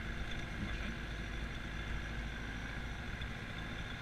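Vehicle engine and drive noise heard from inside while driving on a farm track: a steady low rumble.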